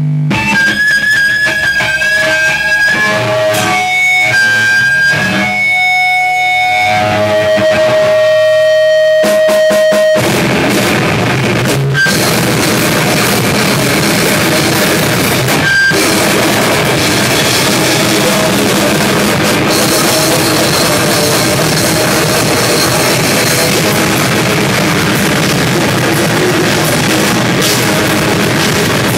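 Rock band playing live: a guitar rings out held notes on its own, then about ten seconds in the drum kit and guitar crash in together and the band plays on loud and dense.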